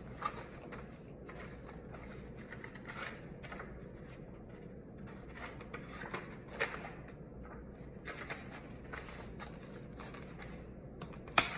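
Pages of a paperback book being leafed through by hand: a run of soft papery rustles and flicks, with a couple of sharper flicks partway through and near the end.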